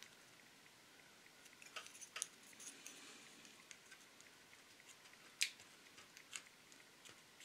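Faint scratching and a few sharp little clicks of a hobby knife blade working against a plastic model-car bumper and grille part, scraping away built-up old glue and prying at the stuck grille insert. The loudest click comes about five and a half seconds in.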